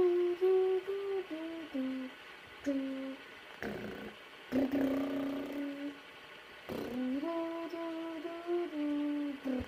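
A person humming a tune: held notes stepping up and down in three short phrases, with brief pauses between them.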